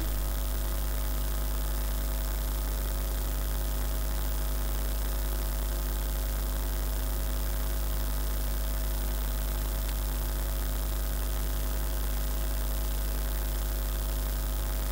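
Steady electrical mains hum: a low, unchanging hum with a stack of higher overtones and faint hiss above it.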